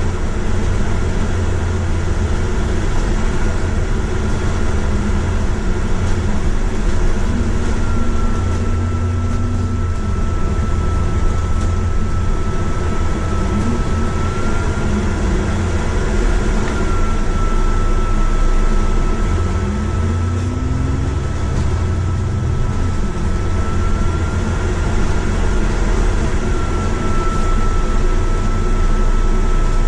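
Bus running along the road, heard from inside: a steady low engine and road rumble, with the engine pitch rising briefly a few times. A thin, faint high whine sets in about a quarter of the way through and stays.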